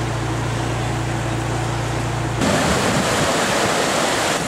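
Rushing noise of surf and wind, with a low steady motor hum under it for the first two seconds or so. The hum cuts off suddenly and the rushing gets louder.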